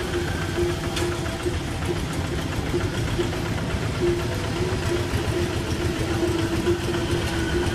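Diesel engines of two-wheel hand tractors running steadily, a dense low chugging, with a steady tone underneath that breaks off now and then.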